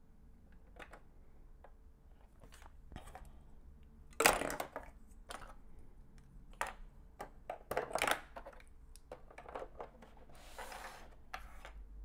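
Plastic LEGO bricks clicking and clattering as they are handled and pressed together, with a louder clatter a little past four seconds in and a few sharp clicks a few seconds later.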